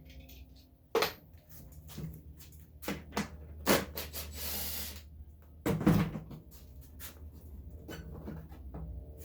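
Plastic car-bumper parts being handled and worked loose: a string of knocks and clicks, loudest about one second and about six seconds in, with a short scrape a little after four seconds in.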